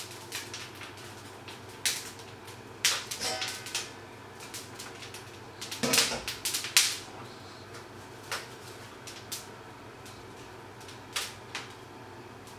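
Irregular crackles and pops of food frying in a pan under a mesh splatter screen, with a louder clatter of metal about six seconds in as the screen and pan are handled.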